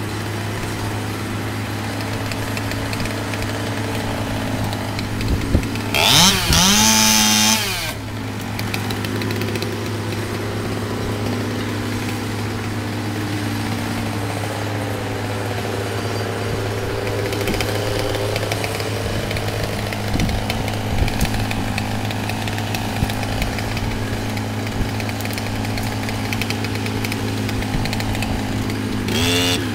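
Chainsaw revving up hard and cutting for about two seconds, then dropping back, and revving again near the end, over a steady low engine hum.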